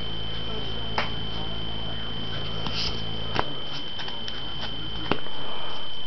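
A steady high-pitched electrical whine over a low hum, broken by a few sharp clicks, one about a second in, one in the middle and one about five seconds in.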